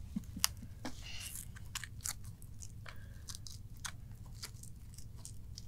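Velcro cable strap being wrapped and pressed down around a leather holster strap: faint scattered crackles and clicks, with a brief rasp about a second in.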